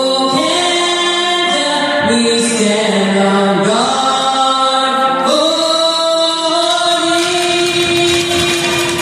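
Singing: long held notes that move from pitch to pitch in steps, one or two seconds per note.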